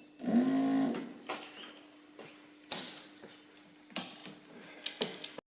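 Volvo PV544 wiper motor running on test power. A whirring in the first second, its pitch bending as it gets going, settles into a faint steady hum. A handful of sharp clicks come at uneven intervals through it.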